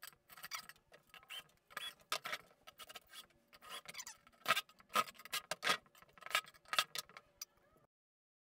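Metal bolts clinking as they are dropped into the holes of a bar stool's metal swivel plate and handled: a run of irregular small metal clicks that stops abruptly near the end.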